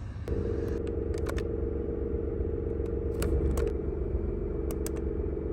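Nissan GT-R's twin-turbo V6 idling steadily with a low rumble, with a few short clicks over it.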